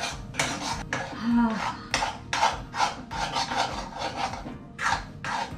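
Metal spatula scraping and stirring thick semolina sheera in a stainless steel pan, in quick rasping strokes about three a second.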